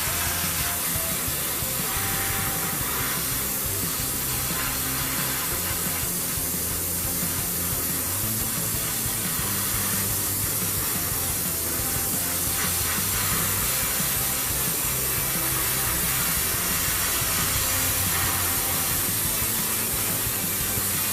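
Airbrush spraying paint: a steady hiss of compressed air and atomised paint.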